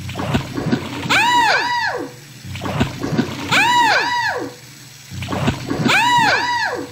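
Scratch's 'plunge' sound effect, a watery bloop with two quick rise-and-fall tones, plays three times about two and a half seconds apart, each time the rocking Lego WeDo boat tips its tilt sensor. Under it runs the low whir of the WeDo motor and gears driving the rocking.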